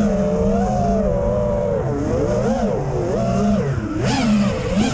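FPV quadcopter's motors and propellers whining, the pitch swinging up and down again and again with the throttle. A rush of air noise rises about four seconds in.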